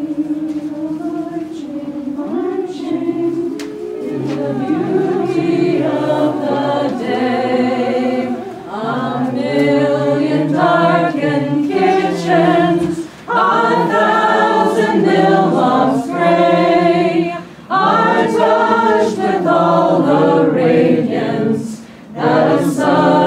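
A group of voices singing together, unaccompanied, in phrases broken by short breaths; it starts softly and grows fuller a few seconds in.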